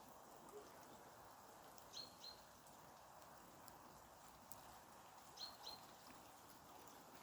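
Faint small-bird call of two quick high notes, heard twice about three seconds apart, over a faint steady background hiss.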